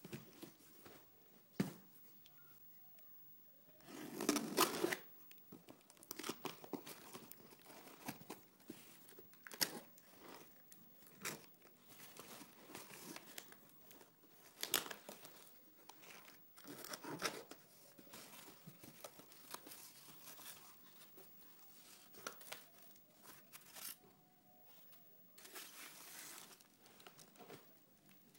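A cardboard shipping box being opened by hand: a loud tearing burst about four seconds in, then scattered scrapes, clicks and rustles as the cardboard flaps and packing are handled, and plastic wrapping crinkling near the end.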